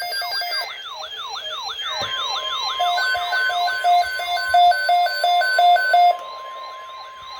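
Several weather-radio alert alarms sounding at once for a new severe thunderstorm watch alert: electronic siren sweeps falling in pitch over and over, a fast high warble, and rapid alternating two-note beeping that stops about six seconds in. From about two seconds in they are joined by a steady single tone, the weather radio warning alarm tone.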